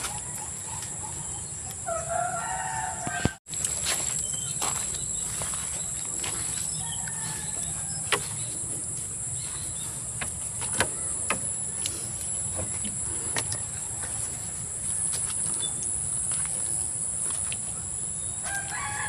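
A rooster crows about two seconds in, over a steady high-pitched insect buzz and scattered light clicks and knocks.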